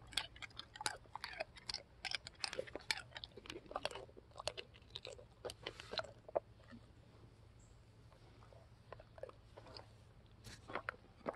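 A dog chewing and crunching something hard, a quick run of crisp crunches that thins out about six seconds in, with a few more bites near the end.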